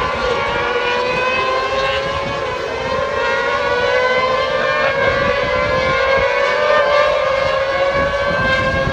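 Racing sidecar outfits' engines at high revs: a sustained whine that climbs slowly in pitch as they accelerate, with more than one engine heard at once.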